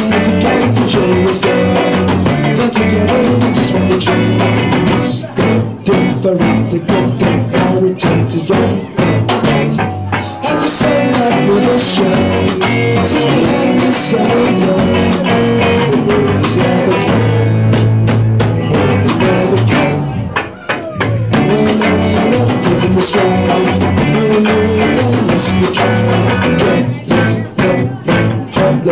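Live punk-country band playing: drum kit, electric bass and guitar, with a singer on vocals. The sound drops away briefly about two-thirds of the way through, then the band carries on.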